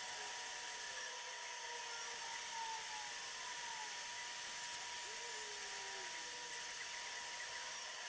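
Newly built desktop computer running with a steady high whine and hiss while its optical drive spins the motherboard's driver disc during driver installation.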